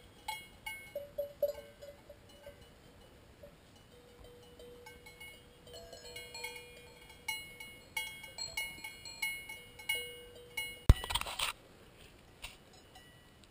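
Cowbells clanking and ringing irregularly on cows grazing right around the microphone. A sharp, loud knock with a brief rustle comes near the end.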